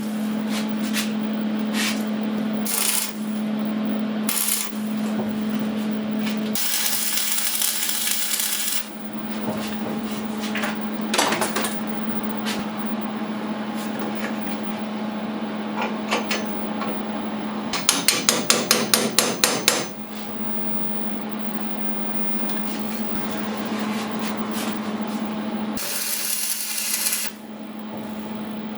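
Washing machine motor running with a steady hum, with several bursts of rough, scraping noise and, about two-thirds through, a quick run of about ten sharp taps.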